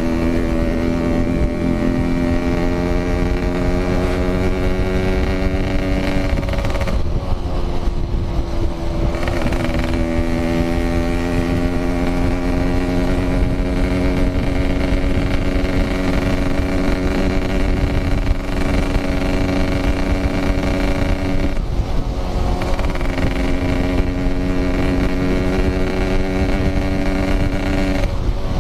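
Yamaha RX-King 135cc two-stroke single-cylinder motorcycle engine running under load while riding, its pitch climbing slowly as it pulls. The engine note breaks off briefly and picks up again about seven seconds in, around twenty-two seconds and just before the end. Low wind rumble sits underneath.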